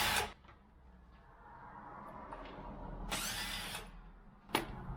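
Cordless drill-driver run in one short burst of under a second, with a sharp click a moment later.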